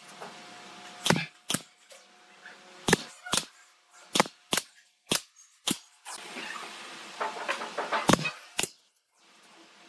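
Pneumatic nail gun firing nails into thin bent wood slats: ten sharp shots in five pairs, the two shots of each pair about half a second apart.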